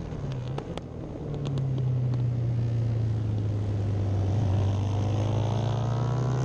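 Classic racing motorcycle engine heard onboard. The engine note drops back for about a second, then pulls steadily through a bend, with the revs climbing in the last couple of seconds.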